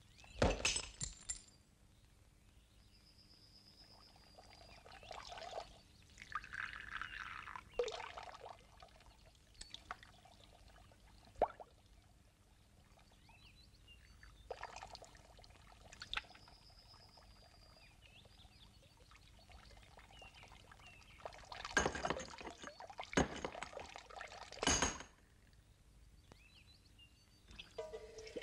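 A string of separate knocks, clinks and short clatters like crockery breaking, the loudest cluster a little over three-quarters through. Just before the end a brass tap is opened and water starts to run from it.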